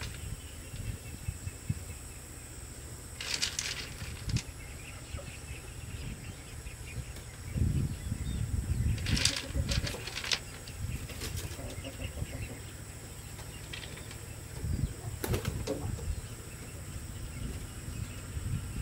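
Small rounded pebbles clicking and clattering in short bursts every few seconds as handfuls are taken from a loose pile and set into wet cement, with soft rustling and scraping between the bursts.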